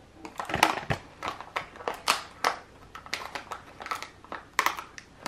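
Plastic blister packaging crinkling and clicking as a mystery-figure compartment is picked and peeled open by hand: a run of irregular sharp crackles of uneven loudness.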